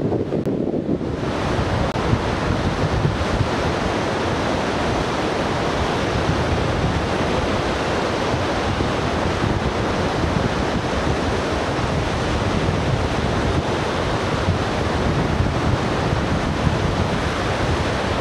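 Surf breaking on a sandy beach: a steady, even wash of waves, with wind buffeting the microphone. About a second in, the low rumble opens out into a fuller hiss of surf.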